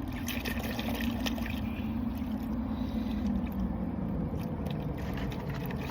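An engine drones steadily, its pitch falling slowly, with a low rumble beneath it and a few light clicks over it.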